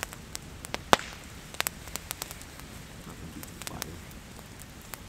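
Campfire crackling: scattered sharp snaps and pops at irregular intervals, one louder snap about a second in, over a low steady hiss.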